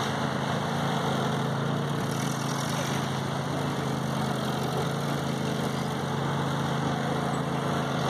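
1948 Ford 8N tractor's four-cylinder flathead gasoline engine running at a steady speed as the tractor drives across grass.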